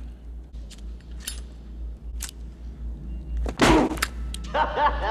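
A movie punch to the face: one loud, sharp smack about three and a half seconds in, after a few light clicks, followed by a man's short vocal sound.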